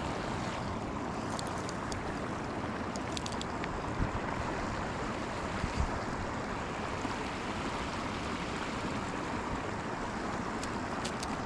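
Steady rushing outdoor noise, with two soft low thumps about four and six seconds in and a few faint high ticks.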